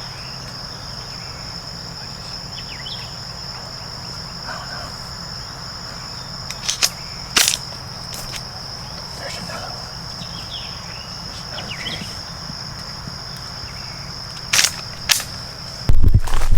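Insects, cricket-like, droning steadily at one high pitch, with faint bird chirps and a few sharp clicks. A loud jumble of rustling or handling noise starts just before the end.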